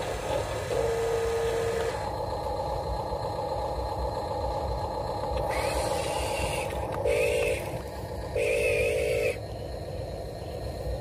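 Electric motors of a Huina 1573 radio-controlled dump truck whining: a steady whine early on as the tipped bed comes down, then a rising whine and two short spurts of whine as the truck drives away. Steady low background noise runs underneath.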